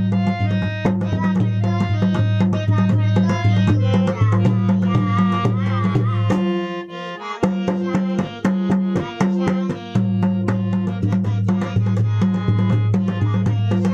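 Harmonium playing a bhajan melody over held low notes, with a two-headed barrel drum beating a steady rhythm by hand. Both break off for about a second near the middle, then start again.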